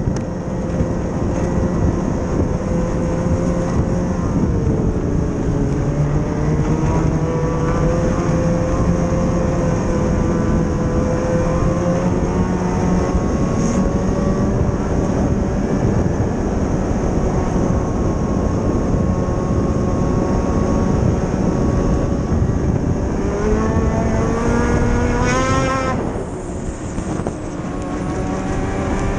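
Snowmobile engine running at trail speed. The engine pitch dips a few seconds in, then climbs steeply near the end under acceleration and drops off suddenly as the throttle is released, before picking up again.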